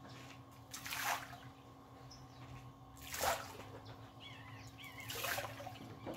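Three short splashes on the reservoir's surface, about two seconds apart, with faint bird chirps near the end.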